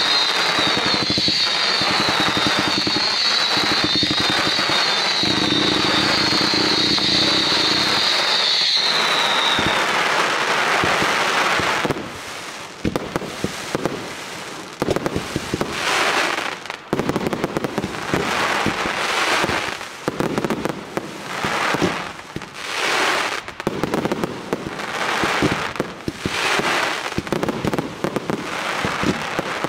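Aerial fireworks display. For about the first ten seconds there is a dense, unbroken barrage with a high wavering whistle over it. After that come separate bursts of crackling from glittering stars and shell breaks, each lasting a second or two, with short lulls between them.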